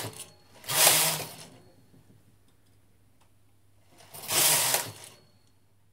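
Brother 950i knitting machine carriage pushed across the needle bed twice, each pass a brief rushing clatter of about a second, about three and a half seconds apart, knitting one row per pass.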